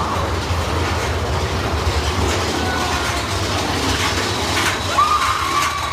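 Roller coaster train running along its track, a steady rattling rumble, with a high held squeal or cry about five seconds in.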